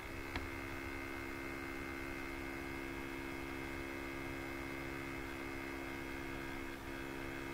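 Steady electrical hum made of several constant tones over a faint hiss, with a single click shortly after the start.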